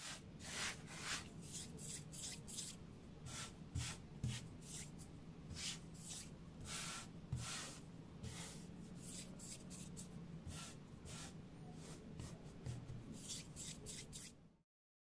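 Homemade foley recorded on a cell phone: quick, irregular gritty scraping and rubbing strokes, a few each second, cutting off suddenly near the end.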